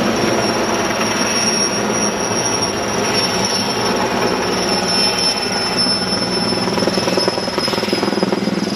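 Erickson S-64 Air-Crane helicopter flying low overhead: its rotors and turbines make a loud, steady noise, with a high turbine whine that drifts slowly lower in pitch.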